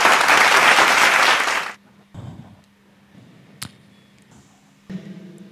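Studio audience applause, loud and even, that cuts off abruptly a little under two seconds in. It is followed by low background sound with a single sharp click.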